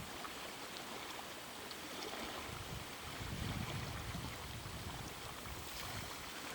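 Steady lake water and wind noise, with irregular low gusts buffeting the microphone and a few faint ticks.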